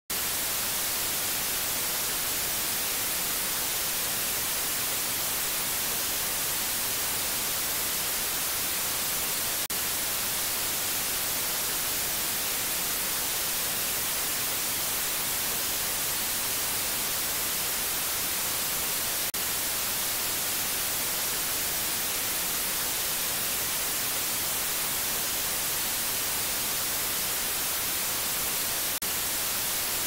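Steady white noise: an even, unchanging hiss, brightest in the high end. It dips very briefly three times, about every ten seconds.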